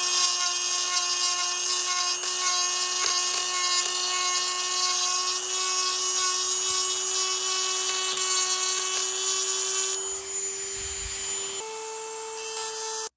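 Rotary tool spinning an acorn-shaped burr inside a two-stroke cylinder's intake port, roughening the metal port walls: a steady high whine with grinding. The whine steps up in pitch near the end, then cuts off suddenly.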